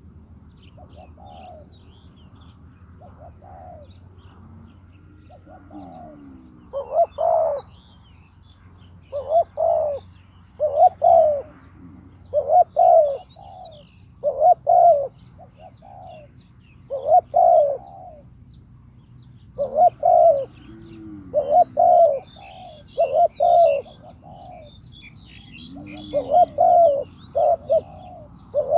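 Spotted dove cooing: repeated phrases of two or three coos, faint for the first few seconds, then loud from about seven seconds in. This is the decoy call used to lure wild doves. Faint chirps of small birds sound in the background, with a brief cluster of them near the end.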